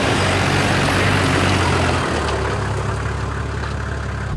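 Toyota Land Cruiser 4x4's engine running as it drives slowly past close by, with a rushing noise over it. The low engine note drops about two seconds in.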